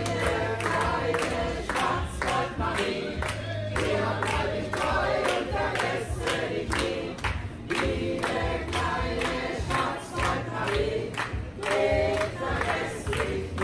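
A mixed group of folk singers in traditional costume singing a song together in chorus, men's and women's voices, keeping time with steady hand claps about twice a second.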